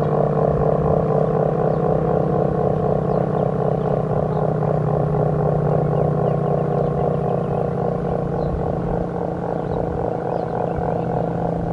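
ACA P-50 outdoor warning siren sounding a steady alert tone, holding one pitch with a regular pulsing and easing off slightly toward the end.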